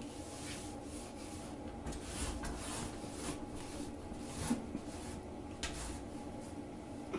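Intermittent rubbing and scraping, a series of short rustles, with a light knock about four and a half seconds in, over a steady low background hum.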